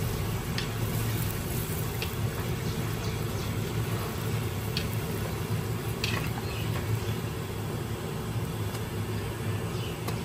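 Bhatura deep-frying in hot oil in an iron kadhai, the oil sizzling and bubbling steadily as a slotted ladle presses the dough to puff it. A few faint clicks over a steady low hum.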